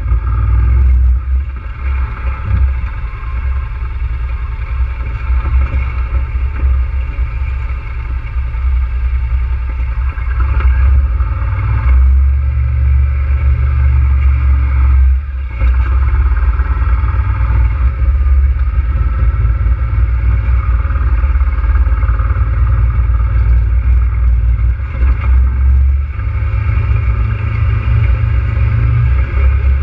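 ATV engine running steadily under load with a deep rumble as the machine rides over rock ledges, dropping briefly about halfway through.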